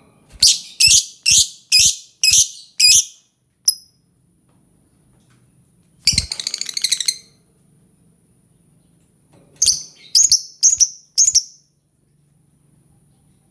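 Lovebird calling: a run of six sharp, shrill calls about half a second apart, then a quick chattering burst about six seconds in, and four more calls near the end.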